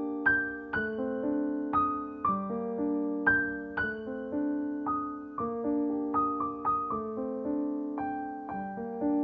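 Background piano music: a slow, gentle tune of single struck notes over held chords, a new note about every half second.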